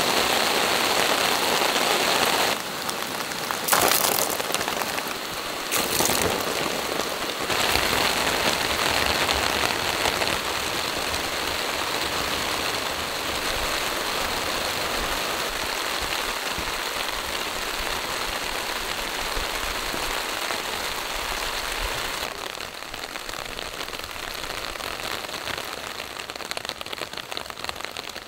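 Heavy rain pouring steadily as a dense hiss, its level jumping abruptly a few times in the first several seconds and dropping a little near the end.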